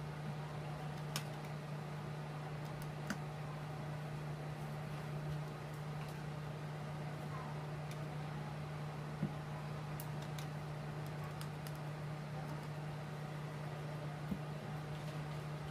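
A steady low hum with an even hiss, broken four times by small sharp clicks as hands handle the opened phone's frame and tools.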